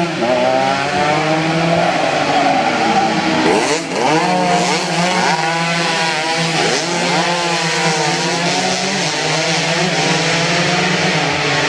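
Two-stroke racing motorcycles at full throttle, their engine pitch climbing and dropping again and again as they run up through the gears, over a steady drone of more bikes.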